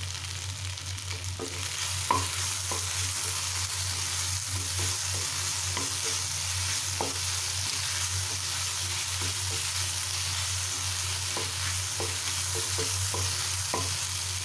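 Spatula stirring macaroni pasta and vegetables in a non-stick pan, with frequent sharp clicks and scrapes against the pan from about two seconds in. Underneath is a steady frying sizzle and a low steady hum.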